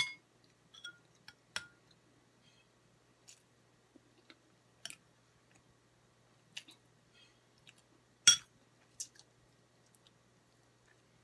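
Eating sounds: a plastic fork clicking against a plate, with chewing, as scattered short clicks every second or two, the loudest a little past eight seconds in.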